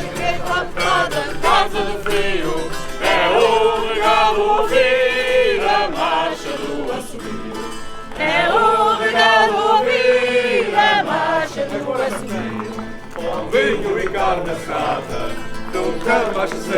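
A group of voices singing a traditional Azorean folk march in Portuguese, in long held phrases, with guitar accompaniment.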